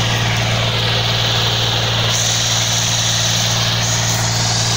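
Tractor engine running steadily at a constant speed, an even low hum with no change in pitch.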